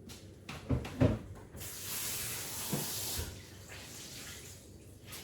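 Two knocks, then a kitchen tap running for about a second and a half before it is shut off.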